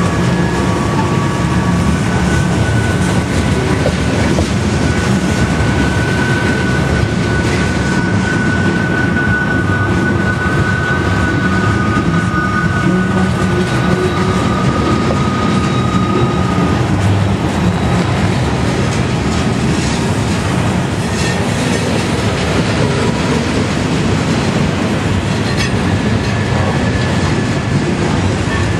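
Loaded freight cars rolling past, with a steady, loud rumble and clatter of steel wheels on rail. Thin high wheel squeals ride over it, strongest in the first half, as the wheels grind round the curve.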